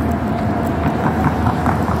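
Steady roadside traffic noise, a continuous rush of passing cars, with faint regular ticks about three a second.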